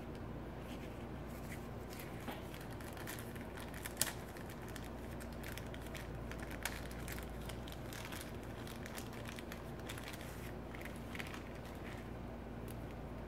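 Small clear plastic parts bag being handled and opened, crinkling in quick irregular crackles, with one sharp click about four seconds in. A steady low hum runs underneath.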